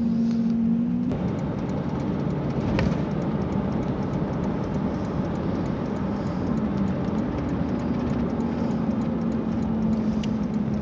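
Car driving, heard from inside the cabin: a steady engine hum over road noise.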